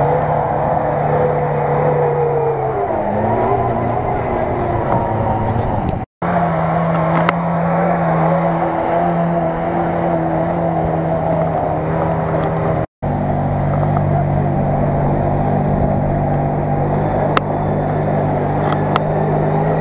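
Off-road vehicle engines working through deep mud in three spliced clips. First a 4x4 straining, its engine note dipping and rising about three seconds in. Then a Lada Niva churning through the bog, and finally a CFmoto CF-800 side-by-side's V-twin running steadily through mud, with the sound cutting out briefly at each splice.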